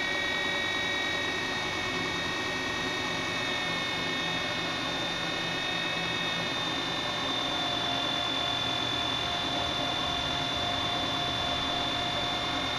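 A 2x72 inch belt grinder running steadily while a piece of metal is ground against its belt over the 10-inch contact wheel. It makes an even running noise with several high steady tones, and a lower tone joins about halfway through.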